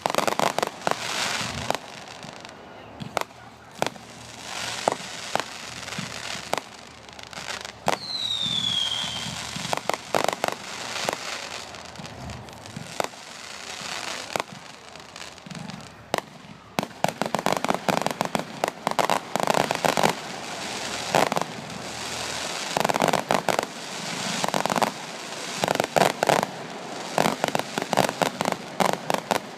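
Fireworks display: aerial shells bursting in sharp bangs, with a short falling whistle about eight seconds in and dense crackling bursts through the second half.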